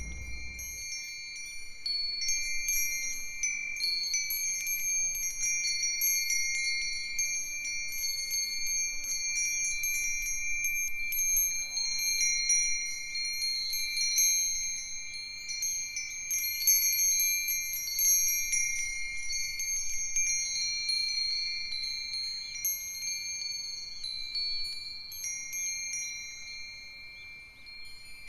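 Several Japanese wind chimes (fūrin) ringing in the breeze. Their clappers strike over and over in quick, irregular tinkles, and the ringing tones carry on without a break.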